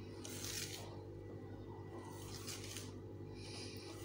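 Silicone spatula stirring and scraping runny chocolate cake batter in a plastic mixing bowl: soft wet swishes about once a second, over a steady low hum.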